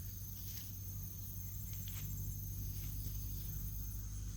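Steady high chirring of insects, with a few faint scrapes and rustles of soil being dug by hand for sweet potatoes.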